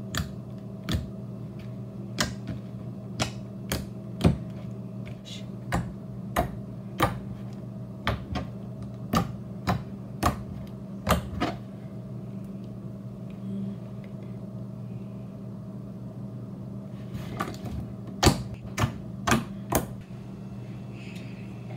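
Thick glossy green slime made from white glue, lotion and baby oil and activated with Tide detergent, pressed and poked with fingers. It gives sharp, clicky pops of trapped air, about one or two a second, then pauses and clicks a few more times near the end, over a steady low hum.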